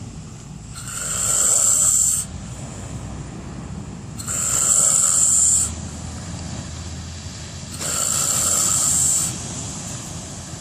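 A person snoring loudly in a slow, even rhythm, one hissing snore about every three and a half seconds, each lasting about a second and a half.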